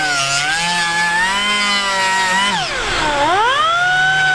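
Small right-angle grinder with a sanding disc running as it grinds down a fiberglass hull, a high whine that shifts in pitch as the tool is worked. About three seconds in, the whine drops sharply and climbs back up.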